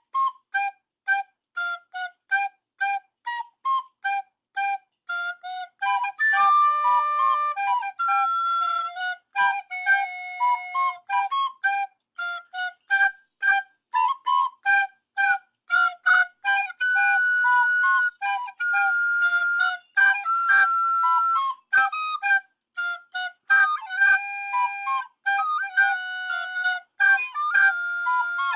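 A flute or recorder playing a solo melody of short, detached notes, about two to three a second, with a few longer held notes, and no accompaniment.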